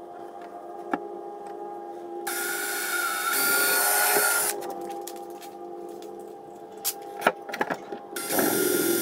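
Cordless drill boring pilot holes through a pine board with a small twist bit: the motor spins up to speed for about two seconds a couple of seconds in, then again near the end, with a steady whine over the cutting noise and a few sharp clicks in between.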